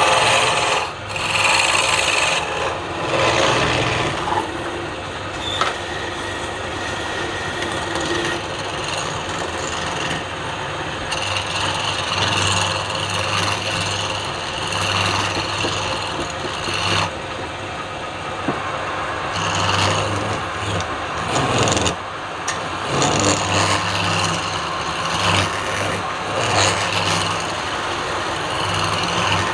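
A tool rasping and scraping across wood in a continuous rough rubbing, with irregular strokes and a low hum that comes and goes.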